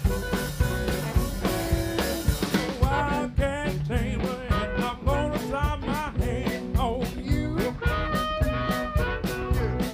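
Electric blues-rock band playing an instrumental passage, with electric guitars, bass and drum kit over a steady beat, and a cymbal wash in the first couple of seconds. From about three seconds in, a harmonica plays a lead of bent, wavering notes over the band.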